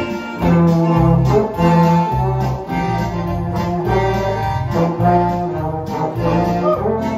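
Polka played by a small band: a Roland digital accordion, electric bass guitar, trombone and baritone horn together, with the bass notes on an even beat about twice a second.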